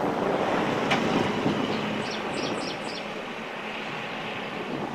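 Wind gusting across the microphone, a steady rushing noise, a little stronger in the first second or so, with a few faint high chirps about two to three seconds in.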